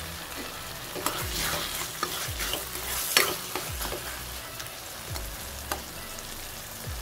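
Chopped tomatoes sizzling in oil in a metal pan as they are sautéed down for tomato thokku. A metal spoon stirs through them, scraping against the pan a few times in the first half.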